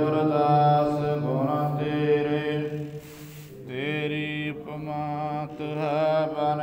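A man's voice chanting Gurbani in a slow, melodic recitation over a steady drone, with a short pause for breath about three seconds in.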